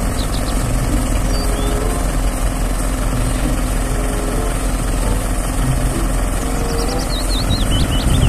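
Truck-mounted aerial work platform (skylift) running steadily with its engine driving the boom's hydraulics, a loud, even rumble. Small birds chirp briefly near the start and again near the end.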